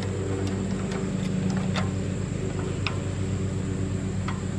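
A motor drones steadily, with a few light clicks as bolts are taken out of the pressure washer pump.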